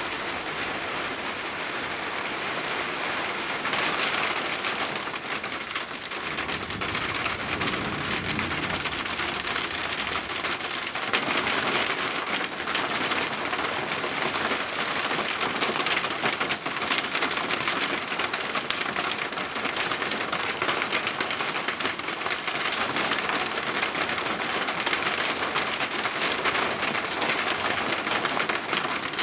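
Heavy rain pouring steadily in a thunderstorm, with a low rumble of thunder about seven seconds in.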